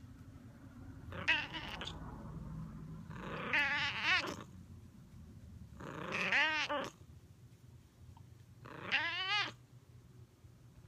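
A Bengal cat meowing loudly at close range, giving four calls a couple of seconds apart. The later calls are drawn out, each rising and then falling in pitch.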